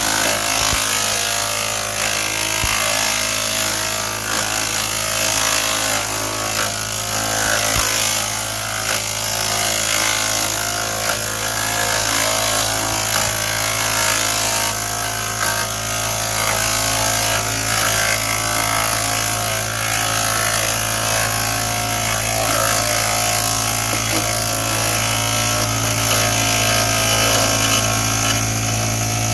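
Ohashi GS401D chipper-shredder running steadily, with a low engine hum and scattered knocks and crackles as it grinds material.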